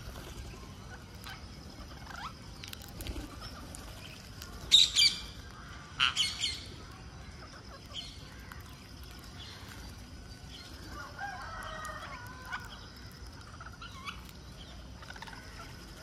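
Rose-ringed parakeets at a feeding spot: two short, loud, harsh screeches about five and six seconds in, over wingbeats and scattered light clicks. A softer, lower, wavering call comes about two-thirds of the way through.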